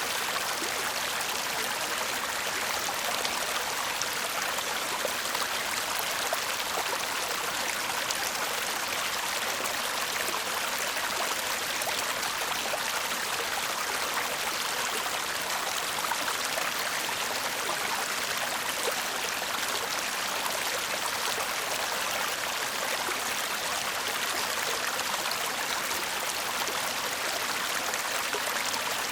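A shallow stream babbling and trickling over stones, a steady murmur of running water with fine splashes.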